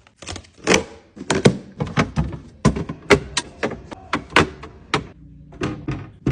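Irregular knocks, taps and clatter of containers being set down and shifted on refrigerator shelves, about fifteen sharp hits in quick succession.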